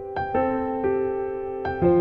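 Background music: a slow piano melody of held notes, with new notes struck about every half second to second.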